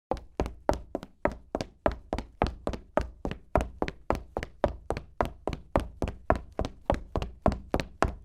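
Footsteps of a woman walking quickly, sharp even steps at about three and a half a second, starting suddenly out of silence.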